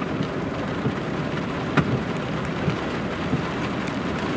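Heavy rain pouring steadily onto floodwater, a dense even hiss with a low rumble underneath.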